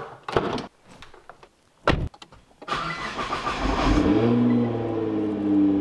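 A car door is opened by its handle and shut with a single thud. About three seconds in, a Nissan GT-R's twin-turbo V6 starts with a loud flare of revs, then settles to a steady idle as the revs fall.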